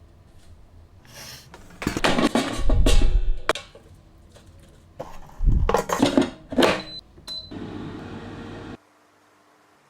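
Kitchen cooking sounds: two clusters of clattering and crackling bursts with low thuds, then a steady hiss that cuts off suddenly near the end.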